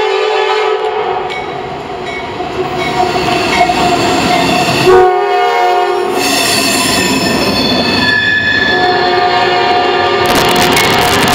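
Diesel freight locomotive's horn sounding a chord as the train approaches, its pitch dropping sharply about five seconds in as the locomotives pass close by, then the rumble and clatter of double-stack container cars rolling past.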